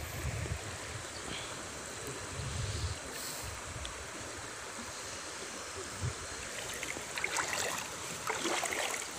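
Shallow rocky river flowing steadily, with low wind rumble on the microphone in the first few seconds. Near the end come a few light splashes as a cast net is worked through the water.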